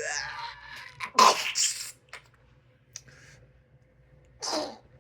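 A man stifling coughs with his mouth held shut: a strained, falling hum at the start, then explosive muffled cough bursts about a second in and again near the end, with quiet between.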